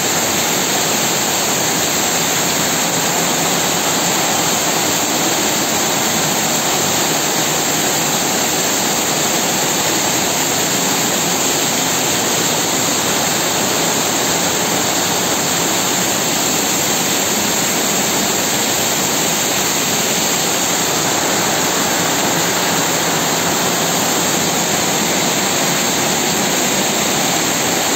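Heavy rain pouring down in a steady, loud, unbroken hiss, with water running off the roof.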